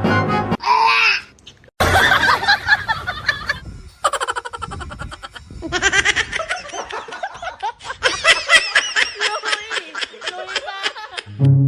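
Laughter: a run of quick, repeated laughing sounds, longest in the second half.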